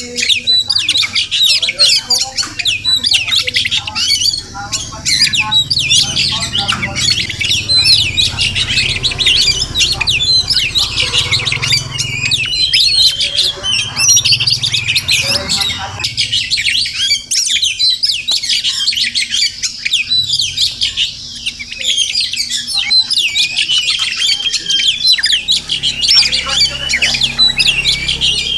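Oriental magpie-robin singing a long, rapid, varied song of whistles and chirps that runs on without a break.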